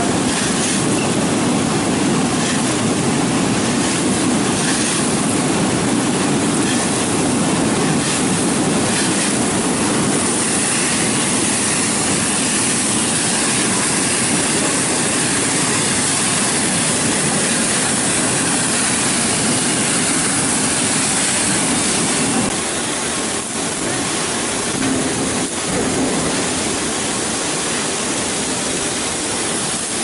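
Industrial apple washing machine running: air bubbles churning the water in the soaking tank and spray nozzles showering the fruit, over a steady low machine rumble. The level drops a little about 22 seconds in.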